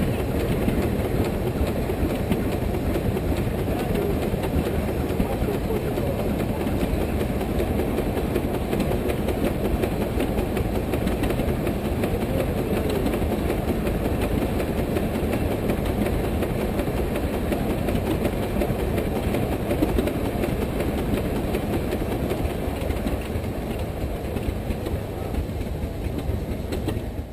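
A 110 hp Case steam traction engine running on a brake, its exhaust chuffing in a rapid, steady beat. The beat eases off slightly near the end.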